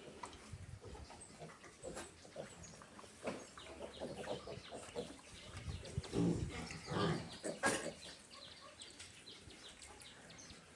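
Farm livestock calling, with scattered clicks and rustling throughout and a cluster of louder calls about six to eight seconds in.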